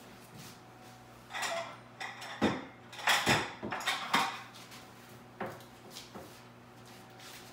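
Dishes and cookware being handled on a kitchen counter while plating up: a run of clattering clinks and knocks from about one to four and a half seconds in, then two lighter knocks.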